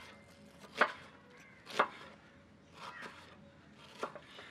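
Knife slicing through a red onion and knocking on a wooden cutting board, one sharp chop about every second.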